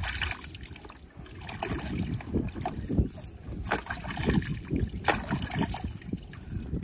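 Water sloshing and splashing in a plastic tub as a large murrel (snakehead) fish is rubbed and turned over by hand while being washed, in short irregular splashes.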